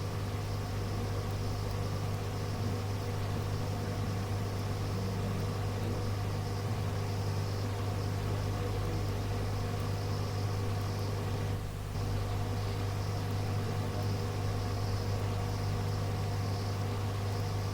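Steady hum and hiss on an aviation radio recording between transmissions, with a constant low drone and a few fixed tones. The hum dips briefly about twelve seconds in.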